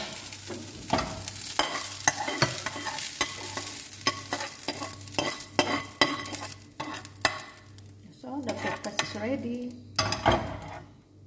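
Metal spoon scraping and knocking fried rice out of a hot frying pan onto a plate, with many sharp clicks of spoon on pan. The rice sizzles in the pan, and the sizzle dies away about halfway through.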